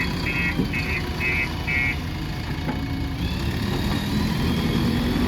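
Diesel engine of a JCB 3DX backhoe loader running steadily, with a reversing alarm beeping about twice a second that stops about two seconds in. The engine note then rises a little.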